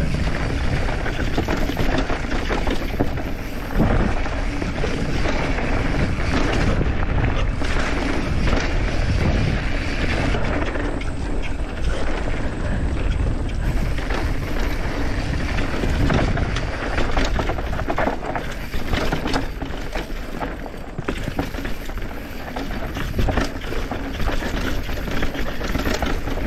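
Downhill mountain bike ridden fast down a dirt trail: a steady rush of wind over the camera microphone and tyres on dirt, broken by frequent knocks and clatters as the bike hits bumps.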